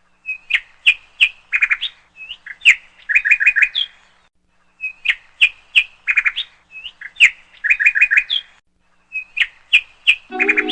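Birdsong: a phrase of quick chirps and trills, repeated nearly identically three times with short pauses between. Music comes in near the end.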